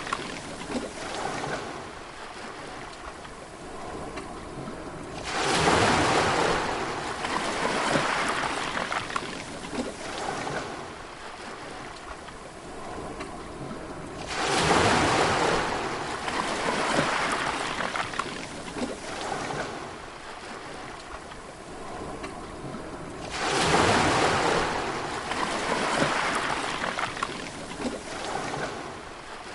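Sea waves breaking, three times about nine seconds apart. Each is a sudden loud rush of surf that slowly washes back and fades into a softer steady hiss.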